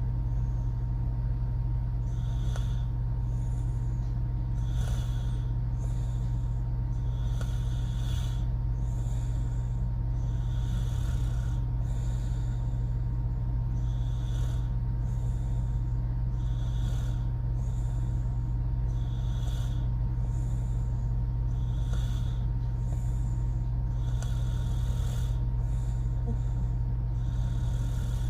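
A woman snoring through her open mouth, a short breathy rasp about every two to two and a half seconds, over a steady low hum.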